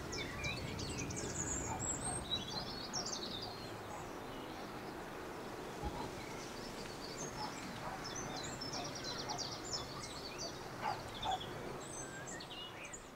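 Small birds chirping in quick, scattered short calls over a faint steady outdoor background hiss.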